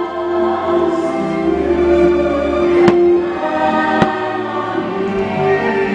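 Fireworks show soundtrack with a choir holding long sung notes over orchestral music, punctuated by two sharp firework bangs about three and four seconds in.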